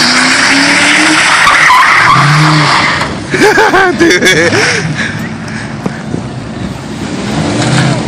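Fox-body Ford Mustang notchback doing a burnout: the engine revs hard under loud tyre squeal for about three seconds. It then eases off, with a few short wavering squeals, and goes quieter as the car rolls away.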